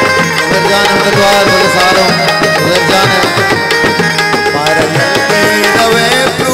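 Instrumental passage of Balochi folk music: tabla playing a steady rhythm under a busy melodic instrument line, with no singing.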